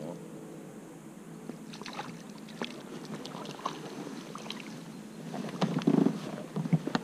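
Handling sounds in an inflatable boat: scattered light clicks and knocks, with a louder patch of rubbing and scuffling about six seconds in.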